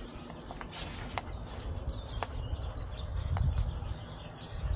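Footsteps through grass with a low rumble on the microphone that swells about three seconds in, a few light clicks, and faint birds chirping in the background.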